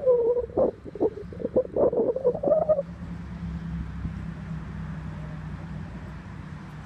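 Wet tidal mud squelching and sucking in irregular bursts for the first few seconds, then a steady low hum under a faint hiss.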